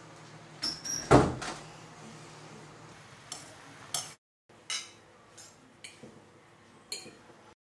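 A door is pushed shut with a short squeak and then a loud bang about a second in. After a brief drop-out, a fork clinks lightly a few times against a steel saucepan while stirring instant noodles.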